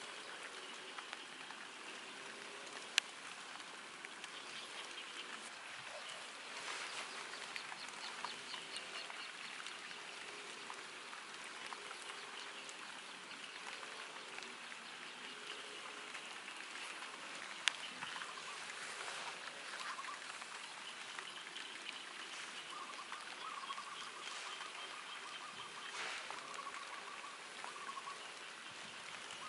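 Light rain falling on foliage, a steady soft hiss with scattered drop ticks, and two sharp clicks, one a few seconds in and one just past the middle. Faint bird calls come through at times.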